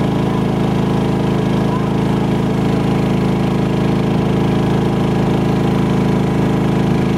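Boat engine running steadily at constant speed, pushing the boat upriver.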